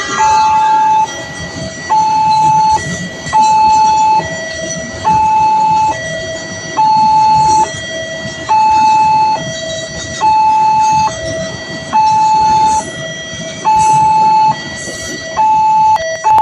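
Railway level-crossing warning siren sounding a steady two-tone high–low alternation, each tone held a little under a second. It warns that a train is approaching and the crossing barrier is down.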